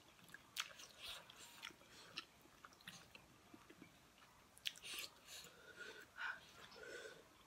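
Faint chewing and lip-smacking of two people eating chicken drumsticks, heard as scattered short wet smacks and clicks.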